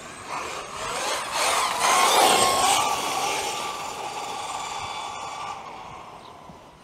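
Traxxas XRT RC truck's electric motor and cooling fans whining as it speeds past, with tyre hiss on asphalt, loudest about two seconds in. The steady whine then fades as the truck drives away down the street.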